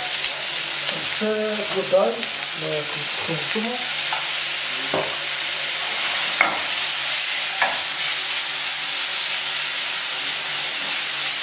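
Meatballs, peppers and onions sizzling steadily in a frying pan over a gas flame, with a few sharp clicks about five, six and a half and seven and a half seconds in.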